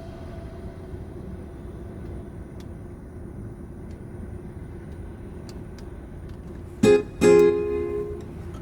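Background music: a held note fades away, then about seven seconds in a strummed acoustic guitar plays two chords that ring out, over a low steady rumble.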